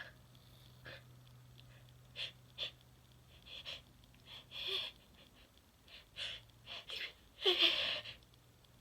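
A person's short, catching breaths and sniffs as a sneeze builds from an itchy nose, then one loud sneeze near the end.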